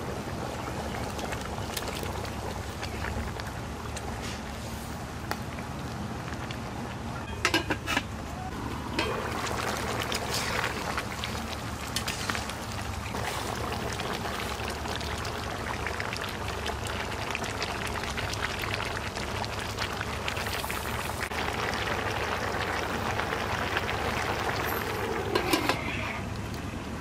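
Chicken curry cooking in an earthen pot: liquid poured in and the contents sizzling and bubbling, in two louder spells, with a couple of sharp knocks.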